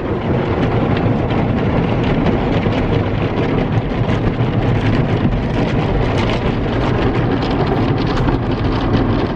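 Automatic car wash spraying and scrubbing water over a car, heard from inside the cabin: a steady, loud rushing and pattering noise.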